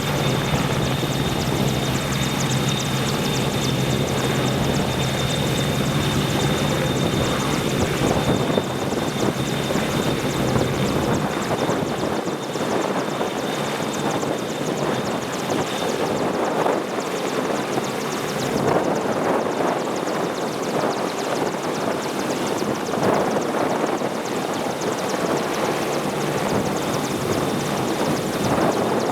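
AgustaWestland AW101 Merlin helicopter running, a steady high turbine whine over the dense rotor noise. The low drone drops away about twelve seconds in.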